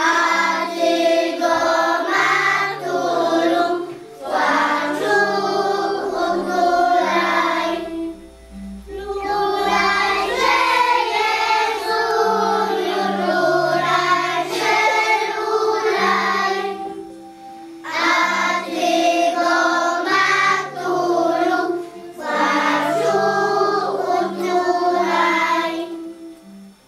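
A group of children singing a Christmas carol together over a steady instrumental accompaniment, in phrases with short breaths between them; the singing stops near the end.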